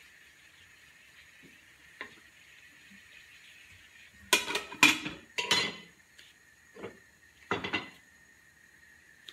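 Glass pan lid clattering against a metal frying pan: a few loud knocks and clinks about four to five and a half seconds in, a lighter one shortly after and another cluster near the end, over a faint steady hiss.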